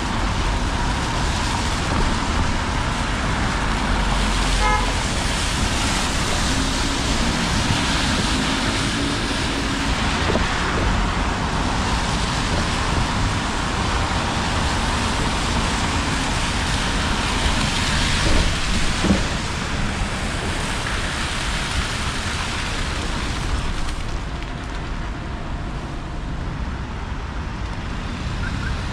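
Steady city traffic on a rain-soaked avenue: cars and buses passing, with tyres hissing on the wet asphalt.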